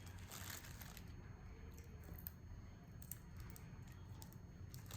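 Quiet handling noises: a few faint, scattered clicks and light rustles of takeout containers and packaging being handled.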